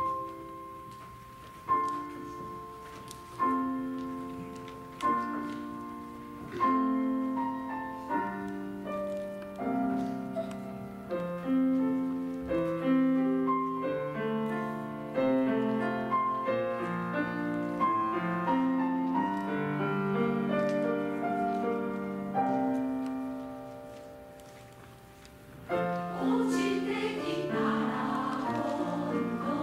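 Grand piano playing an introduction: spaced single chords struck about every second and a half to two seconds, then a busier flowing line. About 26 seconds in, a women's choir comes in singing over the piano.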